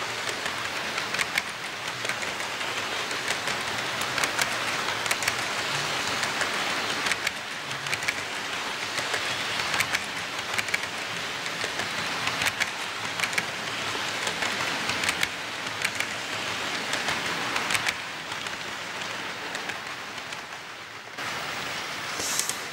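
HO-scale model freight cars rolling past close by: a steady hiss of metal wheels on the track, with frequent clicks at the rail joints. Near the end the sound shifts suddenly and a brief high squeal is heard.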